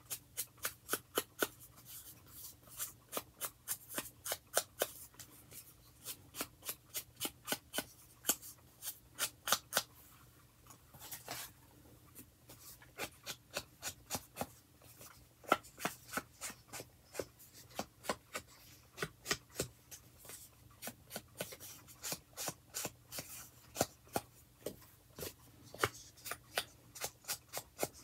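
Round distress ink brush dabbed and swiped over the edges of paper cut-outs, inking them. It makes a quick run of short scratchy strokes, about three a second, with a brief break about a third of the way through.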